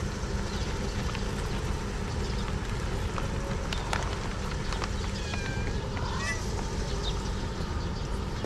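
Steady low outdoor background rumble with a few scattered light clicks, and a brief run of high chirps a little past the middle.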